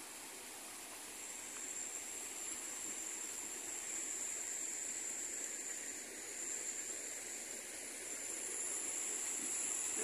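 Water rushing over rocks in a small river cascade, a steady hiss that grows slowly louder, with a thin steady high whine above it.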